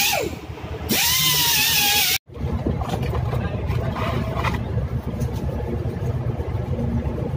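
Small high-speed rotary grinder grinding down weld on gear teeth: its whine dies away just after the start, spins up again about a second in, and grinds until it cuts off abruptly a little after two seconds. After that, a low steady rumble with light clatter.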